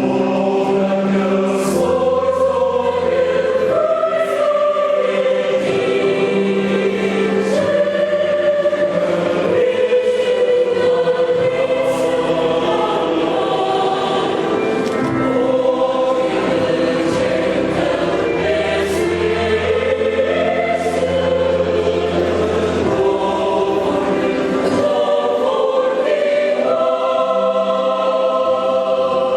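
A high-school choir singing in several parts, with sustained low notes beneath the melody.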